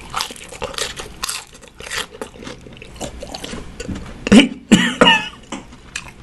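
Close-up chewing of crispy, sauce-coated fried chicken, with small crunching clicks. A little after four seconds in come two loud, sharp puffs of breath and a short vocal sound as the extreme chili heat hits.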